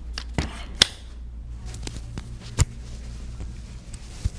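Several sharp clicks and knocks from a chiropractic adjustment of a patient lying on the table, the loudest about a second in and another strong one in the middle, over a low steady hum.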